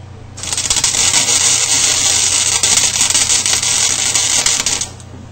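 Welder plug-welding a screw hole in a sheet-steel car floor pan: a steady, dense crackling sizzle that starts about half a second in and cuts off after about four and a half seconds.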